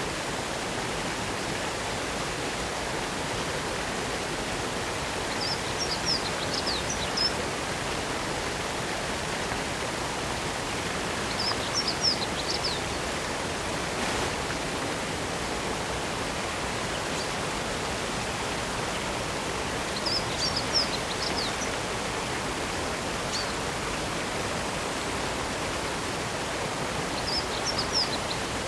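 Steady rush of a waterfall. A small songbird sings a short, high phrase four times, about every seven seconds.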